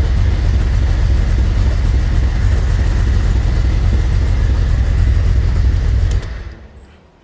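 1998 Jeep Cherokee XJ engine idling steadily, then switched off about six seconds in, the rumble dying away within about a second.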